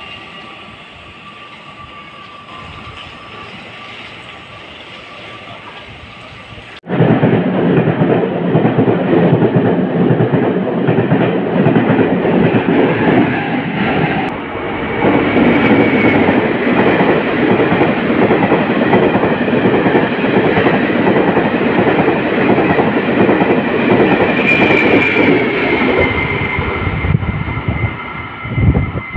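A Taiwan Railway train. It is quieter at first; then, after an abrupt cut about 7 s in, a train passes close by at speed, wheels clattering rapidly over the rail joints in a loud rumble. Faint high wheel squeals come twice, around the middle and near the end.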